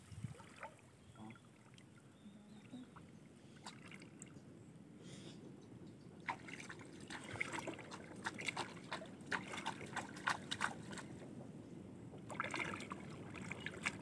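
Shallow river water faintly sloshing and trickling around wading legs and bamboo cone fish traps being plunged into it, with small splashes and clicks that grow busier from about six seconds in.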